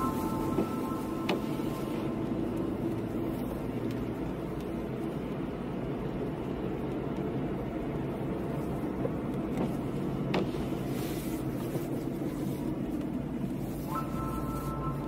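Steady road noise inside a car driving on a wet road in rain: engine and tyre hiss, with a couple of faint clicks.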